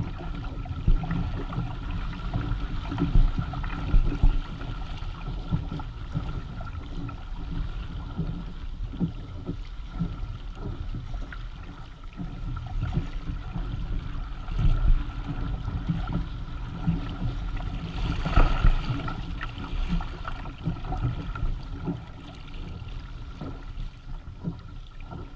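Water rushing and gurgling along the hull and amas of a Hobie Tandem Island sailing kayak under way, with small waves slapping irregularly against it and a low rumble. A louder rush of spray comes about eighteen seconds in.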